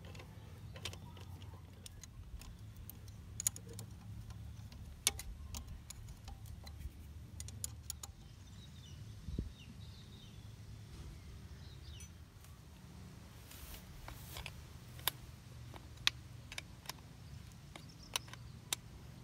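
Scattered sharp metallic clicks and clinks of hand tools: a spanner and ratchet working the starter motor's bolts, then a spanner tightening the cable clamps on the batteries' terminals. A faint low rumble sits underneath.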